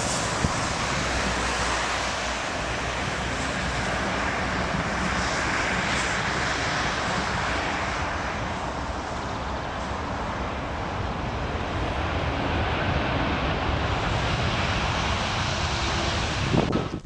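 Airbus airliner's jet engines running steadily, an even rushing noise with a faint low hum underneath; it cuts off abruptly near the end.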